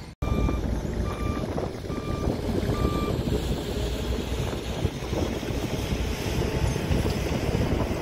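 Dump truck reverse alarm beeping four times, evenly spaced, in the first three seconds, over the steady low rumble of diesel truck engines and wind on the microphone.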